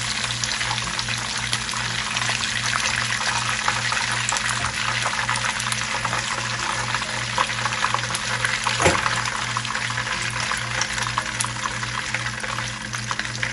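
Hot oil sizzling steadily in a frying pan after shrimp have been fried in it, thick with small crackles, with a single knock about nine seconds in.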